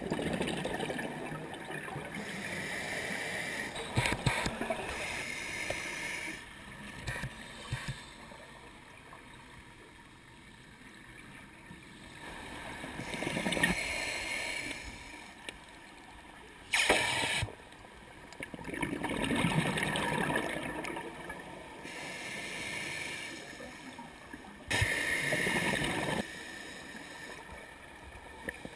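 Scuba breathing underwater through a regulator: surges of hiss on each inhalation and bubbly gurgling bursts of exhaled air. These come in cycles every few seconds, with quieter gaps between.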